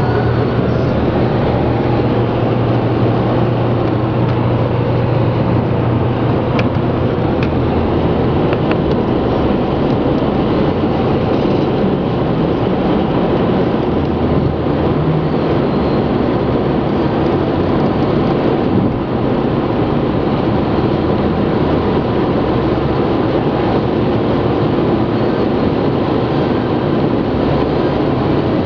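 Road and engine noise inside a car's cabin while it drives at motorway speed: a loud, steady hum of tyres on the road and the running engine.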